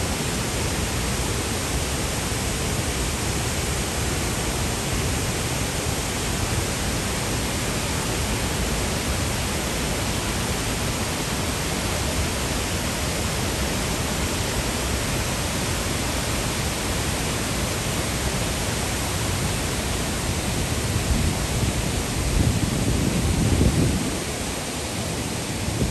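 Steady, full rush of the Passaic River's whitewater churning through the rock gorge below Paterson Great Falls. A few low rumbles rise over it near the end.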